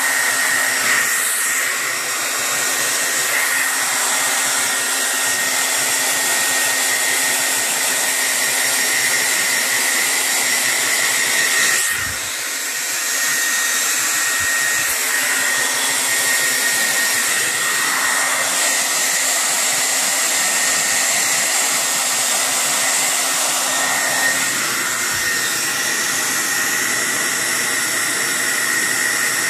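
Hair dryer running steadily: a constant blowing hiss with a thin, steady whine, dipping briefly about halfway through.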